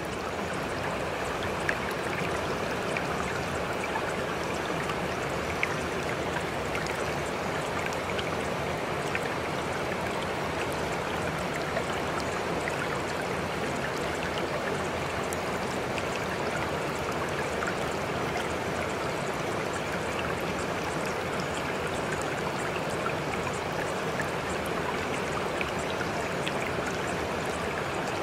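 Steady rain: an even hiss of falling water, with a few sharper drop ticks now and then.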